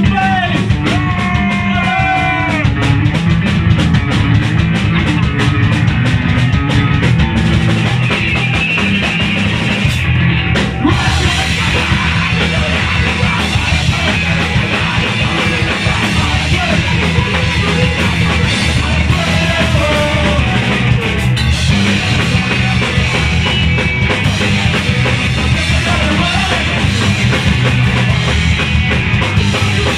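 Punk rock band playing live: electric guitar, bass guitar and drum kit, with singing.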